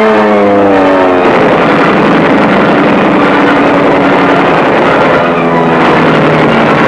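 Loud piston aircraft engines as fighters dive past, the pitch falling in the first second and again about five seconds in.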